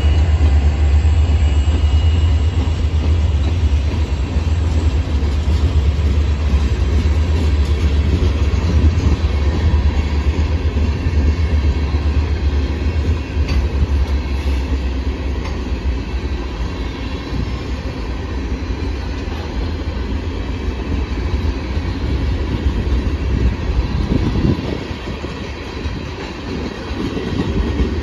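Freight train of tank cars rolling past, a steady low rumble of steel wheels on the rails.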